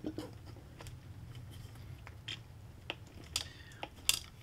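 Scattered, irregular light clicks and ticks of a thin steel wire being handled and pushed into a 3D-printed plastic lure turner, the sharpest about four seconds in, over a low steady hum.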